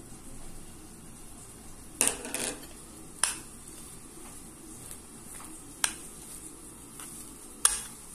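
A metal spoon clinking against a glass baking dish while mixing egg yolks into mashed potato: a few sharp clinks a second or two apart, the first a quick cluster.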